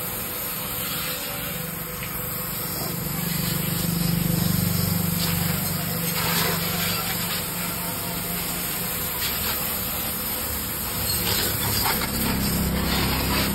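Pressure washer jet spraying water onto a motorcycle: a steady hissing spray over the low, steady hum of the washer's three-piston pump and its 2 hp electric motor.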